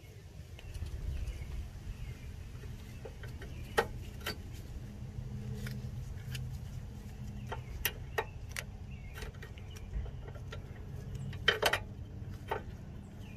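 Pliers working a steel cotter pin in a ball-joint castle nut, straightening it: scattered sharp metallic clicks and ticks, with a cluster of quick clicks near the end, over a low steady hum.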